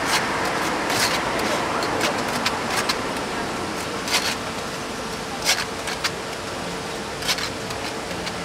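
Steady background noise of a busy street, with about nine short, sharp clicks and clinks at irregular intervals.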